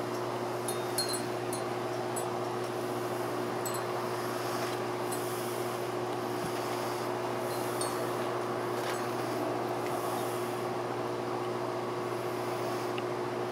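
Steady mechanical hum with a constant low tone, like a motor or pump running without change, with a few faint high chirps about a second in.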